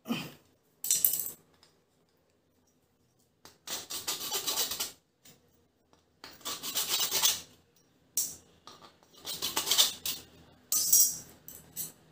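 Hand-held saw blade sawing through the plastic top of a PVC valve fitting: bursts of rasping strokes with short pauses between them.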